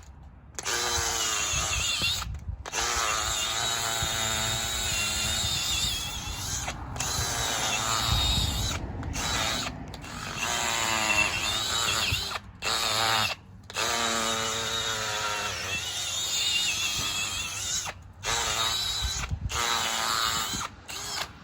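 Milwaukee M18 cordless hammer drill turning a soil auger into the ground. It runs in a series of few-second bursts, stopping briefly between them, and its motor pitch wavers up and down as the auger meets the soil's resistance.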